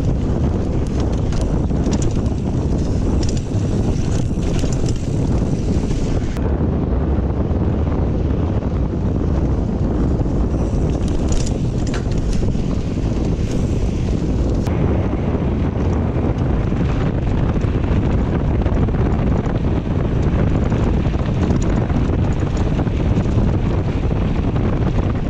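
Wind buffeting a GoPro microphone as a Kona Honzo ST hardtail mountain bike rides dirt singletrack, with scattered clicks and rattles from the bike over the trail.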